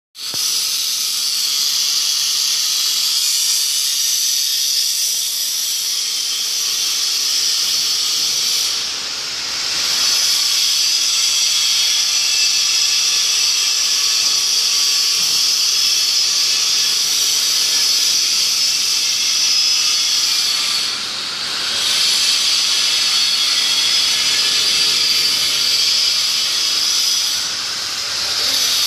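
Steady, loud hiss of rushing air, dipping briefly three times: about a third of the way in, about two-thirds in, and near the end.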